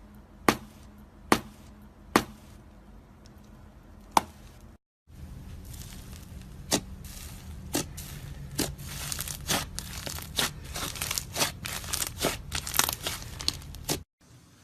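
Slime being pressed and stretched, trapped air popping with sharp snaps: four separate pops in the first few seconds, then after a cut a busier run of crackling pops that grows denser toward the end.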